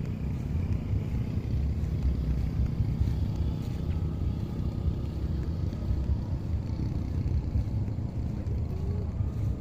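Wind rumbling on the microphone, with the faint whine of a remote-control airplane's motor above it.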